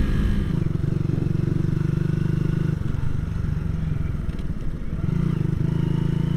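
Motorcycle engine running at a steady cruise under way. Its note breaks off briefly about three seconds in and dips again near five seconds before carrying on.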